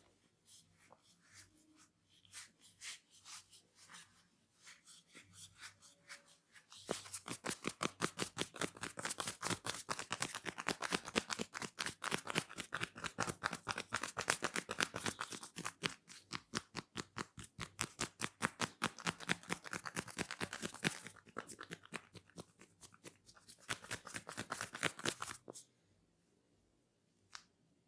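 A barber's hands on a client's hair and scalp in a head massage, making crisp clicks. They come sparsely at first, then in a fast, even run of many clicks a second from about seven seconds in, pause briefly around twenty seconds, come again in a shorter run, and stop about two seconds before the end.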